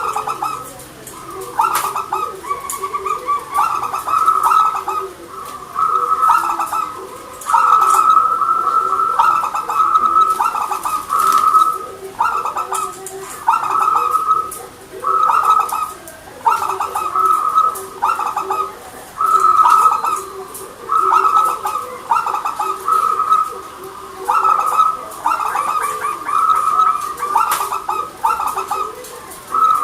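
Zebra doves (perkutut) cooing: short rippling coo phrases repeated one after another with brief gaps, over a faint steady low tone.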